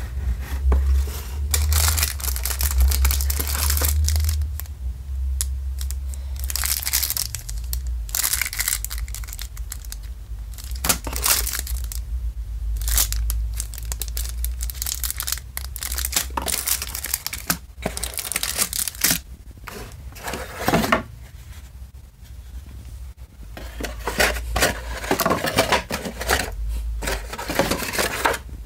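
Hands handling board-game components: crinkling the plastic shrink-wrap on a card deck and sliding and flapping a cardboard box insert, in irregular rustling and crackling bursts. A low rumble of handling noise sits under it, strongest in the first few seconds.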